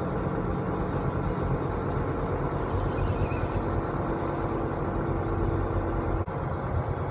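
Semi truck's diesel engine running steadily at low speed, a constant drone with a faint added hum partway through.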